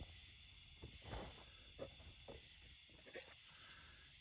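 Near silence: room tone with a faint steady high whine, and a few faint soft knocks.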